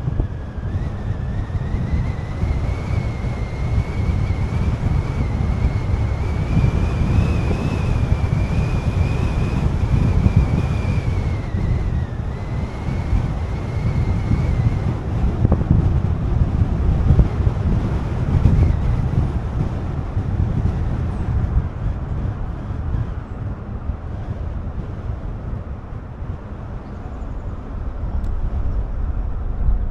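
A car driving, with steady road rumble and wind buffeting the microphone. A thin high whine rises slowly, dips, and fades out about halfway through.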